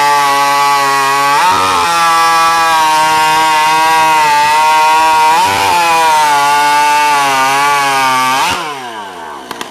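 Hot saw, a racing chainsaw with an oversized engine, running at high revs with a steady whine. The pitch dips briefly twice. Near the end the engine cuts off and winds down with a falling pitch, followed by a patter of quick ticks.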